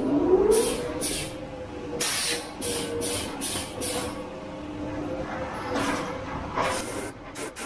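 Automatic crystal-pendant making machine running: a steady hum under a series of short hissing bursts, several a second in the middle, with longer hisses about two seconds in and near the end.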